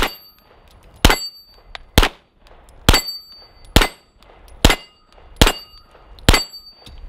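Canik TP9SFL 9mm long-slide pistol fired eight times in slow, even succession, a little under a second between shots. Several shots are followed by the high ring of a steel target being hit.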